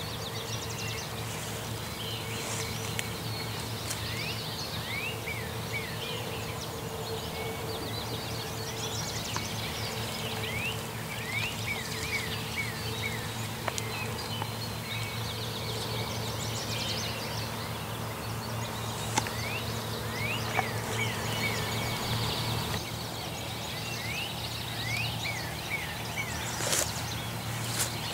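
Songbirds singing in a morning chorus, repeated phrases of quick slurred whistles, over a steady low hum, with a few brief louder sounds, the loudest near the end.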